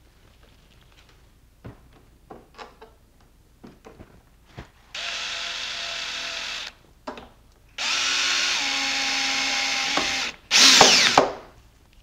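DeWalt cordless drill/driver driving the latch screws into the door edge: a run of about two seconds, a brief blip, a longer run of about two and a half seconds, then a short, louder burst near the end. Light clicks of handling come before the first run.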